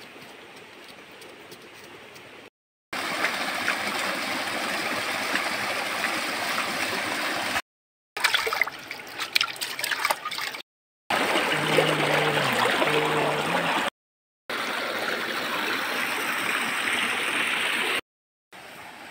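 Shallow stream flowing over rocks, a steady rush of water, with splashing and sloshing as a clay pot is rinsed and dipped in the current. The sound comes in several short stretches broken by brief silent gaps.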